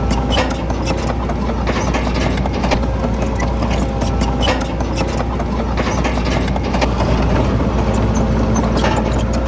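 Heavy diesel engine of earthmoving machinery running steadily, with irregular clanks and knocks over it.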